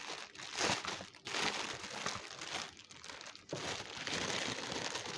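Product packaging crinkling and rustling as it is unwrapped by hand, in several bursts with a longer unbroken stretch near the end.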